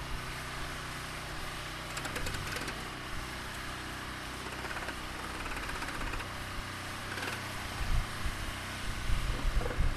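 Hobart engine-driven welder-generator running steadily, with short bursts of welding-arc crackle about two seconds in and again near seven seconds. A few low thumps come near the end.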